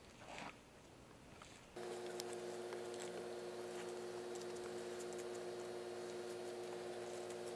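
A scalpel slicing a whitetail deer's hide free of the membrane and meat, heard as faint scattered ticks and crackles. About two seconds in, a steady hum of several pitches starts abruptly and runs underneath, louder than the cutting.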